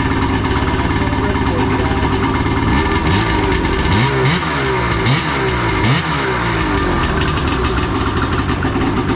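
2008 Polaris Dragon 800's two-stroke twin engine running through freshly fitted SLP twin pipes, blipped about four times in quick succession near the middle, the revs rising and falling back to a steady idle.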